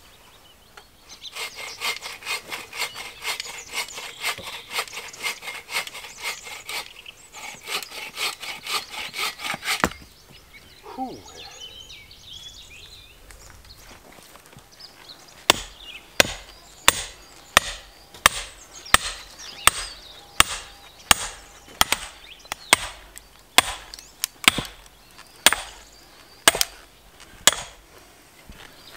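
Hand saw rasping through a log in quick back-and-forth strokes, with one short pause. After a quieter spell, regular sharp knocks, about two a second, as a log round is split for firewood.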